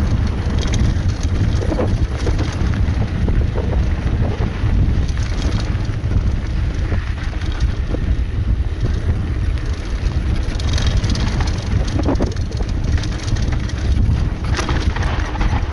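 A mountain bike descending a dirt singletrack at speed: heavy wind buffeting on the camera microphone and steady tyre rumble on the dirt, with scattered rattles and clatter from the bike over bumps.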